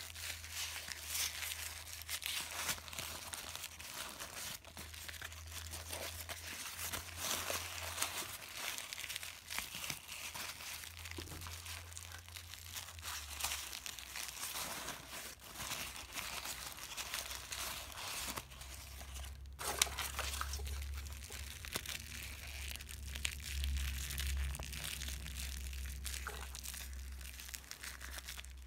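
Thin tissue-paper wrapping being crumpled and pulled apart by hand, a dense irregular crinkling with some tearing, followed by the thin plastic of a deflated toy balloon crinkling as it is unfolded. The crackle is busiest in the first half and thins out later.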